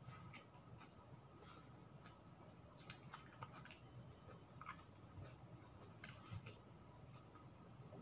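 Faint eating sounds, over near-silent room tone: chewing and small scattered clicks and smacks as chicken adobo and rice are eaten by hand.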